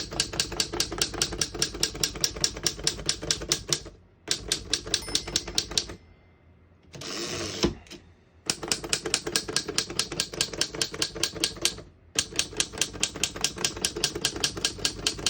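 Typing on a 1911 Smith Premier Model 10 double-keyboard typewriter: runs of rapid key strikes, about six a second. The runs break off briefly about four and twelve seconds in, with a longer pause near the middle, broken by a short rasping slide.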